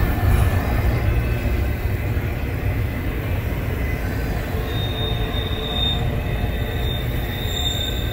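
CSX double-stack container freight train rolling past, a steady low rumble of wheels on rail. About halfway through, a thin, steady high-pitched wheel squeal sets in and holds.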